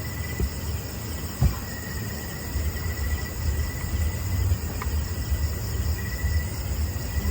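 Insects, likely crickets, trilling steadily on one high pitch, over a low rumble, with a single thump about a second and a half in.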